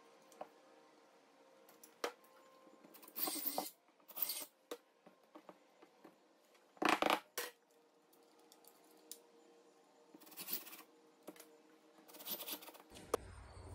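Short scrapes, clicks and clatters, several in a row a second or two apart, the loudest about seven seconds in: a plastic-and-metal water filter unit and its mounting bracket being handled against a wall, and the wall being marked for screw holes.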